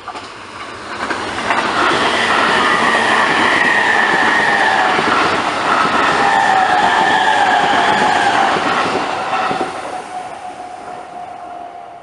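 E257 series limited-express electric train passing at speed, its wheels clattering over the rails with a steady high whine on top. The sound builds about a second or two in, holds loud for several seconds, then fades as the last cars go by.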